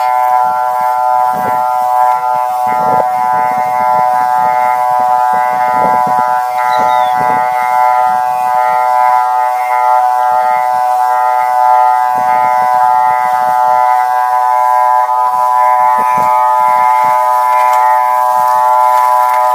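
Motorised sprayer running at a steady speed, a loud even hum with a high-pitched ring, as it pumps foliar spray out through a hand lance.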